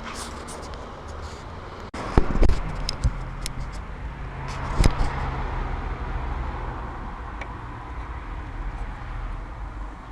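A few sharp clicks and knocks, loudest about two and a half seconds in, over a steady low hum.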